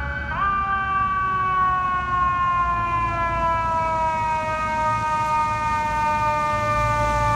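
Fire truck's mechanical siren winds up sharply just after the start, then slowly winds down in pitch, over a low engine and traffic rumble.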